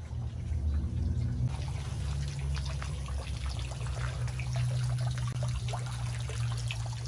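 Thin streams of water falling from leaking pipes into a pond, splattering and trickling on the surface, beginning about a second and a half in, over a steady low hum.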